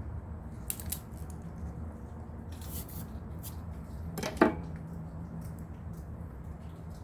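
Crisp, irregular crunching of raw napa cabbage as a Shih Tzu chews it. A brief high squeak about four seconds in is the loudest sound.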